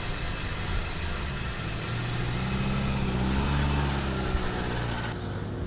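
Car engine running, rising in pitch about two seconds in as it is revved or pulls away, then easing off.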